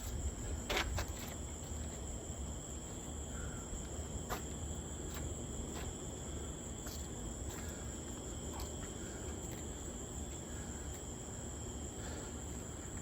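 Insects chirring steadily in a high, even drone, with a few faint clicks now and then.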